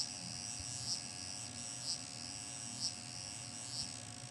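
Haas TL-1 CNC lathe powered up with its axis feeding slowly: a faint steady whine with a short high chirp about once a second.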